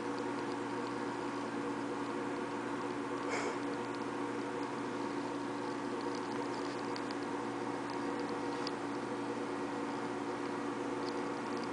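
A steady hum made of several held tones, with faint scattered ticks and one sharper click about three and a half seconds in.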